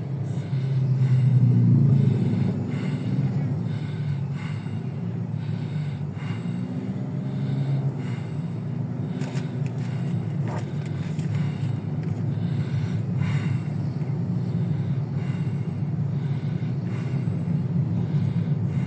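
Steady low rumble of a car's engine and tyres heard from inside the cabin in slow traffic, with engines of passing vehicles and motorcycles rising and fading; the rumble swells loudest about two seconds in.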